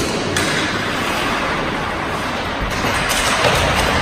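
Hockey skate blades scraping and carving on ice, with a few sharp clacks of sticks and pucks.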